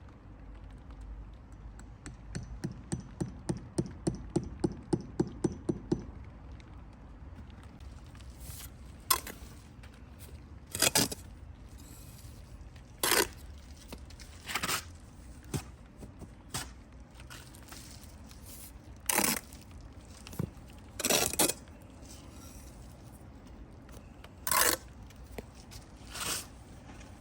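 Bricklaying work with a steel trowel and mortar. A quick run of light taps, about three a second, lasts a few seconds, followed by single scrapes every second or two.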